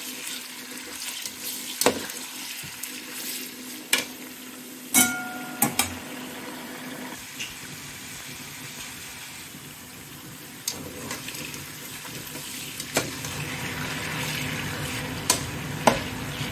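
Pieces of lamb frying in hot oil in a pot, sizzling steadily, with a spatula knocking and scraping against the pot now and then as the meat is stirred; one knock about five seconds in rings briefly. The sizzle grows louder over the last few seconds.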